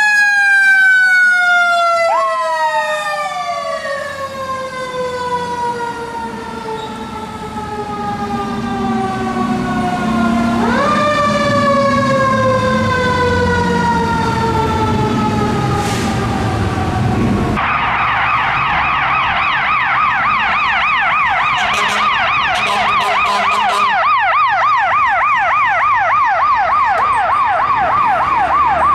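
Fire truck sirens from two responding trucks, one after the other. First a long falling wail that winds down, spins up again about ten seconds in and falls off again, with the truck's engine underneath. After a sudden switch a little past halfway, a fast electronic yelp sweeps up and down several times a second.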